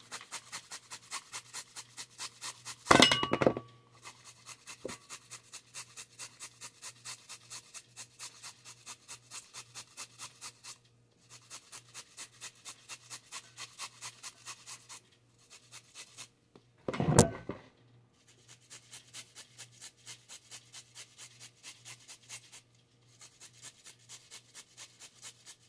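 A carrot being grated by hand on a metal grater: rasping strokes about three a second, pausing briefly a few times. Twice, about three seconds in and again about seventeen seconds in, there is a short, much louder bump.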